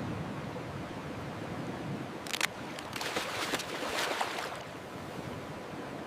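Underwater ambience picked up by a submerged camera: a steady hiss and rumble, with a burst of crackling clicks and fizzing about two seconds in that lasts roughly two seconds.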